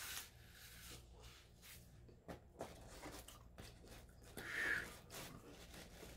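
Faint clicks and rustles from handling a plastic water bottle and pizza slices on paper at a table, with one louder rustle a little past four seconds in.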